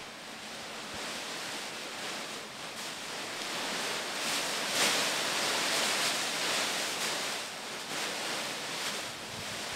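Heaps of thin plastic bags rustling as they are gathered up and shoved about on a hard floor: a continuous rustle that swells to its loudest about halfway through.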